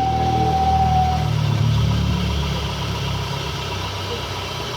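Renault Mégane engine idling with a steady whistle over the engine rumble; the whistle stops about a second in while the engine keeps running. The noise comes from an obstructed crankcase breather.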